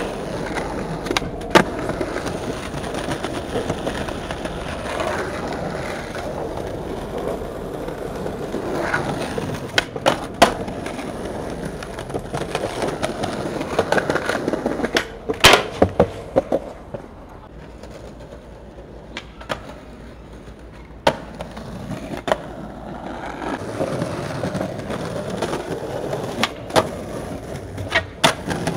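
Skateboard wheels rolling over concrete sidewalk paving, broken by several sharp wooden clacks of the board popping, hitting and landing. The rolling dies down for a few seconds just after the middle, then picks up again.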